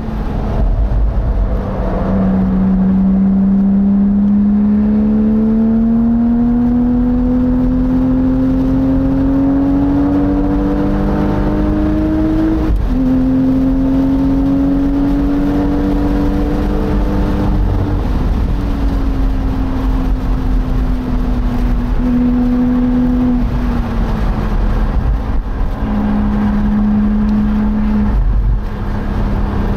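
Porsche Boxster's flat-six engine under hard acceleration, its note climbing slowly through a long gear. A quick upshift drops the pitch about a third of the way in, and it climbs again. Later the driver eases off: the note falls and holds lower with a few small steps. Heard from the open cockpit with wind and road rumble underneath.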